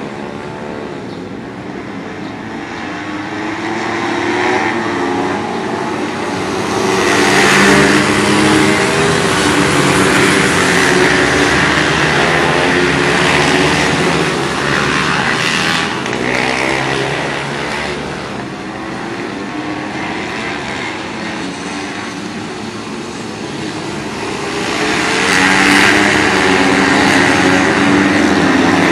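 A field of pit bike engines racing, many small motorcycle engines revving up and down through the corners at once. It grows louder as the pack comes near, about a quarter of the way in, and again near the end.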